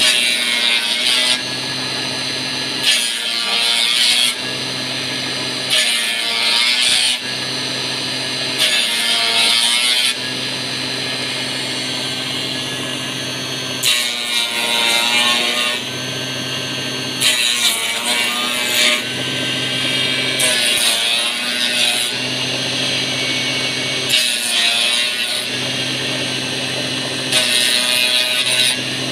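Small powered wood-turning (dowel-rounding) machine running steadily, with a burst of high cutting noise roughly every three seconds as each square wooden strip is pushed through and shaved round.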